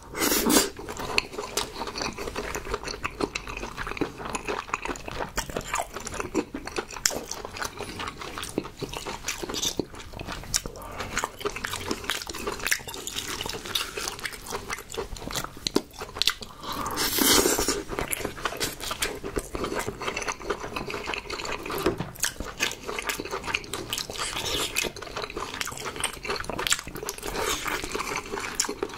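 Close-miked chewing and eating of soft king crab meat, full of small wet mouth clicks, with chopsticks and a spoon scraping and stirring crab meat in the crab shell. One louder noisy sound lasts about a second midway.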